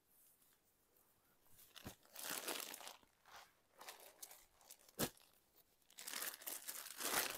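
Crinkling and rustling from sarees being handled, in two bursts, with a single sharp tap about five seconds in.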